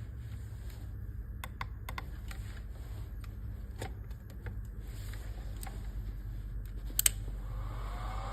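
Scattered small clicks over a steady low hum. Near the end comes a louder click, then the motor on a variable-frequency drive starts up, its whine rising in pitch as it ramps up to speed and then holding steady.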